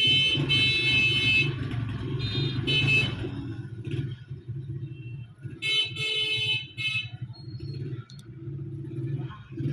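A phone's small ringer speaker sounding a thin, high ringtone in three bursts, as the repaired ringer circuit is tested, over a steady low hum.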